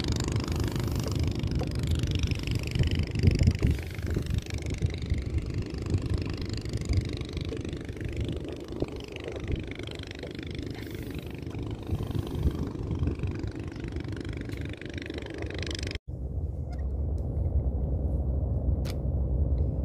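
A small river boat's engine running steadily, with a hiss over it. About sixteen seconds in the sound cuts off abruptly and goes on as a steadier, duller engine hum.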